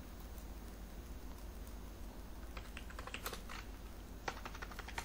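Computer keyboard being typed on: a quick run of key clicks about two and a half seconds in, and another run near the end.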